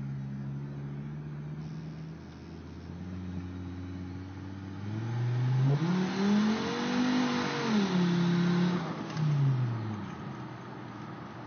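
Turbocharged five-cylinder truck engine, heard from inside the cab, pulling hard under acceleration. The engine note climbs steeply in pitch and loudness about five seconds in, with rushing intake noise over it. It peaks and then drops back down near the end.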